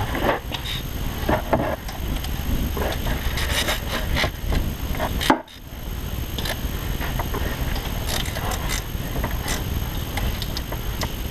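Scattered clicks and scrapes of metal parts and hand tools being handled during work on a fan hub, over a steady low background hum. The sound cuts out suddenly for a moment about five seconds in.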